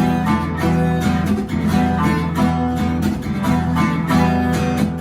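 Background music: acoustic guitar strumming with sanshin in an instrumental passage between sung lines.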